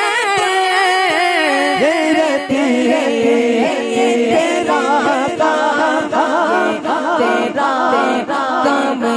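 Urdu naat sung unaccompanied by voices: a wavering, richly ornamented melodic line over steady held notes.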